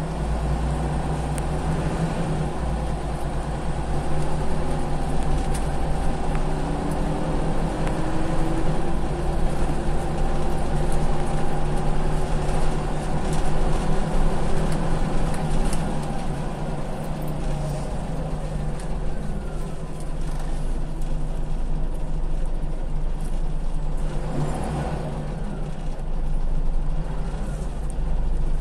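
Interior of an old, heavily worn Scania CL94UB city bus on the move: steady low engine hum with a drivetrain whine that rises and falls as it gathers speed, and a short hiss near the end.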